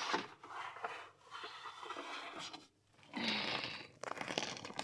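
Handling noise: rustling and scraping against the plastic kitten carrier and its wire door, in two irregular stretches with a short pause about three seconds in.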